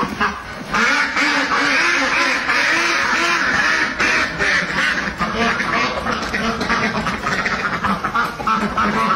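A flock of domestic ducks quacking, many calls overlapping into a continuous chatter that grows louder about a second in.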